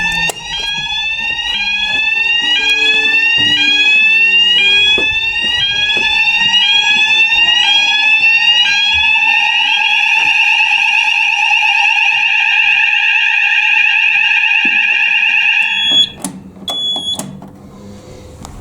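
Electronic fire alarm sounders going off during a fire alarm call point test: a loud rising sweep repeating a little faster than once a second over a steady tone, changing to a continuous steady tone about halfway through. It cuts off suddenly near the end as the alarm is silenced, followed by two short beeps.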